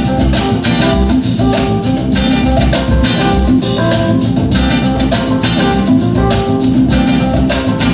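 Music with guitar and drums, a band playing at a steady beat.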